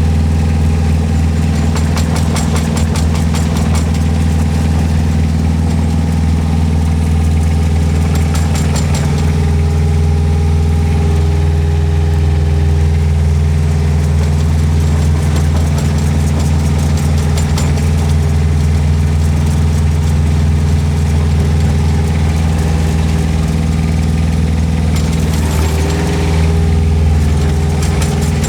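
Kubota diesel engine of a Rippa R10 mini excavator running steadily, with a light rapid ticking in the first several seconds and a slight change in its note near the end.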